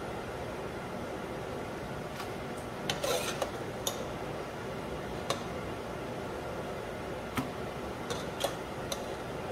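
A metal spoon tapping and clinking against a disposable aluminum foil pan as cooked elbow macaroni is spooned in: scattered light clicks, with a short cluster about three seconds in, over a steady hum.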